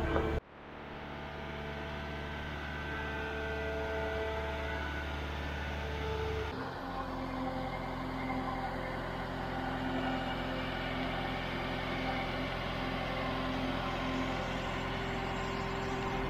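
Boatyard travel lift's engine running steadily as the lift moves a sailboat hanging in its slings. The engine note shifts abruptly about six and a half seconds in.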